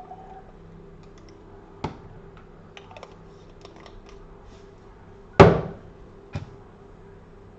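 Light clicks and taps of small parts being handled on a workbench, with a knock just under two seconds in and one loud, sharp crack about five and a half seconds in, followed by a smaller click: the 3M adhesion promoter applicator being readied for use.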